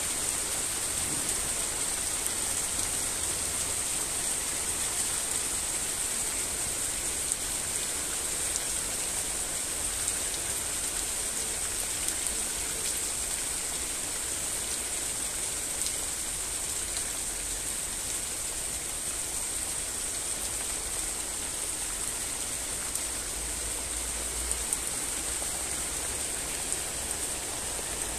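Steady rain falling: an even, continuous hiss with a few faint, sharper drop ticks now and then.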